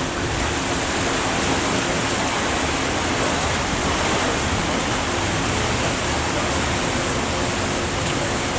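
Steady rushing of water and wind past a moving river tour boat, heard from its open deck, with a faint steady low hum underneath.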